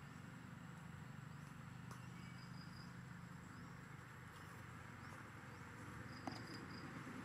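Faint outdoor ambience: a low steady hum under a light hiss, with a few short, faint high chirps and one sharp click about six seconds in.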